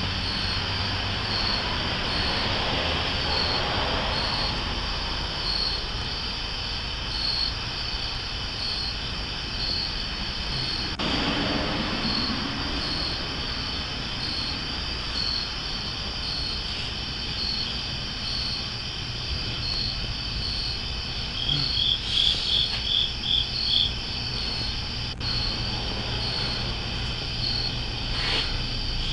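Night insects, crickets or katydids, chirping in an even rhythm of roughly three chirps every two seconds over a low steady rumble. About two-thirds of the way in, a quicker run of about six louder chirps.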